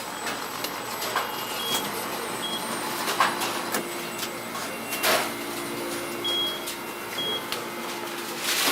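Fast-food restaurant kitchen ambience: steady background noise with a few clattering knocks, several short high electronic beeps from kitchen equipment, and a low steady hum that comes in about a third of the way through.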